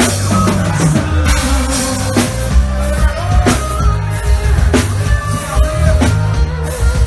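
Live forró band music with a steady drum-kit beat, a heavy bass line and a gliding melody over it.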